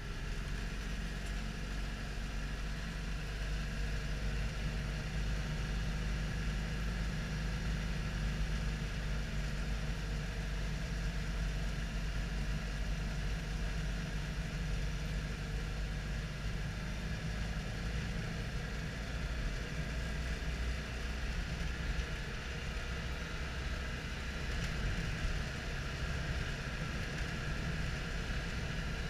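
Citroën Dyane 6's air-cooled 602 cc flat-twin engine running steadily as the car drives along, heard from inside the cabin.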